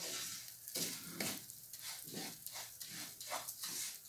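A spoon stirring bulgur as it toasts in a pot, in a run of scraping strokes about two or three a second over a light sizzle.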